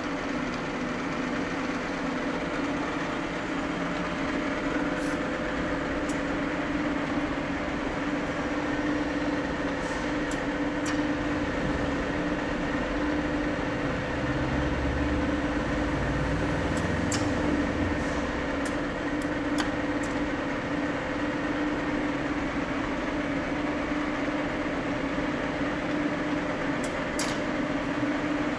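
Ikegai DA36 heavy engine lathe running: a steady mechanical hum from its drive and headstock gearing, with a few light clicks.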